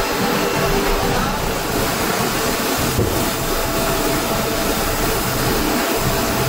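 Large tannery hide-processing machine running, a steady mechanical drone with a faint hum.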